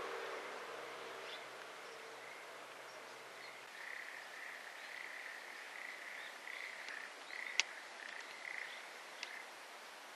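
The last notes of a loudspeaker public-address chime fade away in the first few seconds. Then frogs call in a steady run of short repeated pulses, with a couple of sharp clicks partway through.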